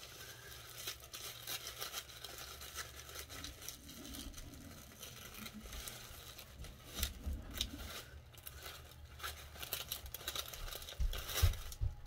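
Tissue paper rustling and crinkling as a wrapped bundle is unfolded, with a few dull bumps from handling, the loudest near the end.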